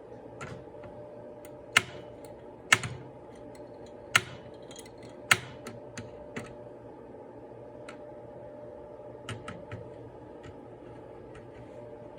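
Sparse sharp plastic-and-metal clicks and taps, four louder ones roughly a second apart in the first half and fainter ticks after, over a steady low hum.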